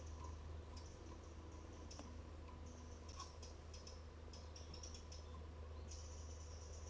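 Faint, irregular high-pitched ticking and clicking in quick clusters, with a longer high rasp about six seconds in, over a steady low hum.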